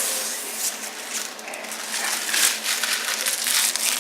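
Rustling and crinkling with many short, sharp crackles, denser and louder in the second half.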